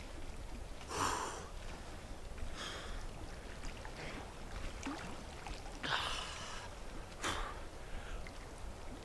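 A man wading into a lake up to his neck: water sloshing around him in about four short swishes, over a steady low rumble of wind on the microphone.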